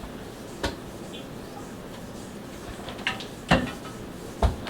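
Items being handled and set down on a table: four scattered knocks and thumps, the loudest about three and a half seconds in.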